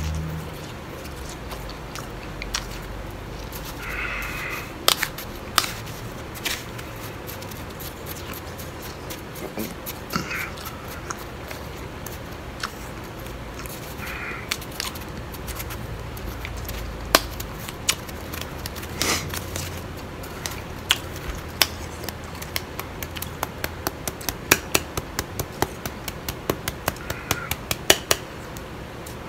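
Blended bag ice being chewed: a run of sharp, crisp crunches and crackles that comes faster and denser near the end, along with a spoon working in a glass bowl of the ice.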